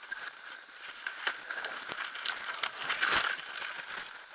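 Dry twigs and branches snapping and crackling in forest undergrowth as something moves through the brush, in irregular cracks with rustling between them and the loudest burst of snapping about three seconds in.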